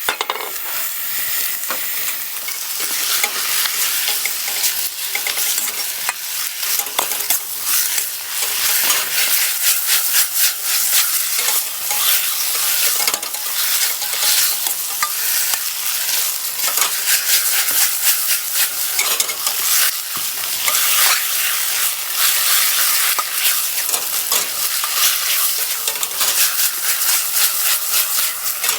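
Food sizzling as it is stir-fried in a pan, with a steady hiss and many quick scrapes and clicks of a utensil stirring it.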